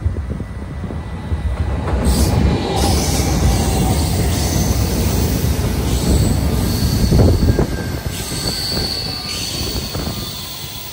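Electric passenger train passing close by, its wheels rumbling on the rails. The rumble swells about two seconds in and eases off near the end, with a high wheel squeal in the last few seconds.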